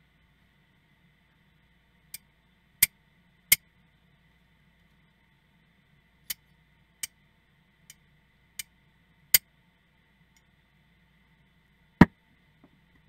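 Restored antique Henry T. Seymour steel shears snipping in the air, the blades closing with sharp metallic clicks, eight in all, in pairs and singly. Near the end there is one louder knock with a short ring as the shears are laid down on the bench.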